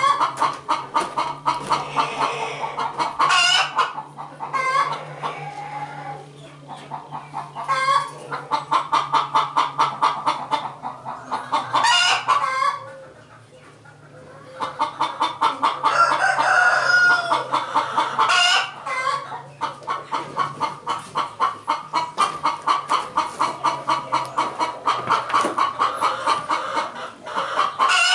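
Chickens cackling loudly and rapidly almost without pause, with a rooster crowing several times over it. The agitated clucking comes from hens disturbed in the room they have been using as a coop.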